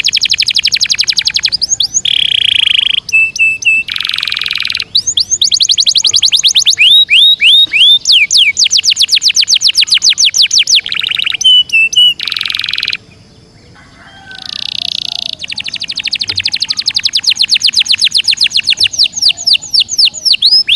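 Domestic canary singing a continuous rolling song: fast trills of rapidly repeated notes alternating with falling whistled sweeps, with a short pause about two-thirds of the way in.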